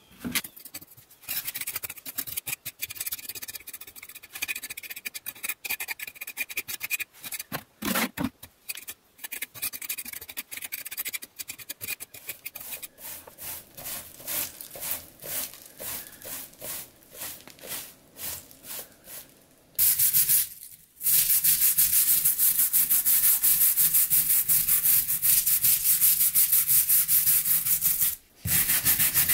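A broom sweeping grit and loose mortar off a fieldstone floor in short, separate scratchy strokes. About two-thirds of the way in, this gives way to a stiff hand brush scrubbing fast and without pause over the stones, working wet mortar into the joints; it is the loudest part.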